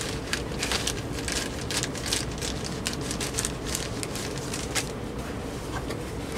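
Cardboard box flaps being folded and tucked shut by hand: a quick run of rustles, scrapes and small crackles over a steady low hum.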